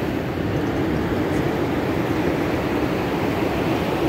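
Steady roar of ocean surf breaking on the shore, with a low rumble of wind on the microphone.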